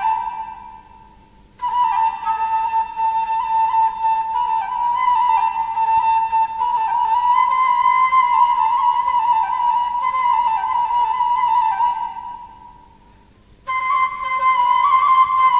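Background music: a solo flute playing a slow, stepwise melody. The phrases die away and start again twice, about a second and a half in and again near the end.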